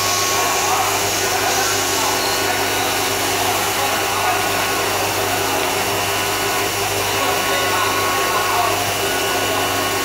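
CNC machining center spindle running as its end mill cuts an aluminum extrusion: a steady whir with a few held tones.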